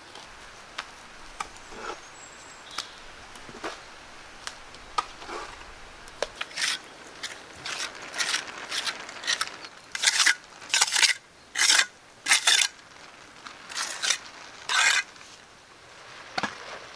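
A run of short scraping strokes, roughly one a second, quiet at first and loudest from about ten seconds in, with scattered small clicks and taps before them.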